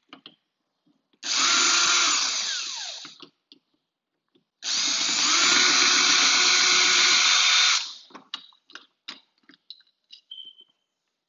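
Power drill running in two bursts on door-knob screws, about two seconds and then about three seconds; the first run trails off as the motor slows, the second stops abruptly. Light clicks and knocks of handling the hardware follow.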